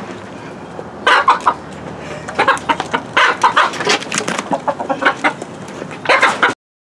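Chickens squawking and clucking in a string of sharp, agitated calls that cut off abruptly near the end.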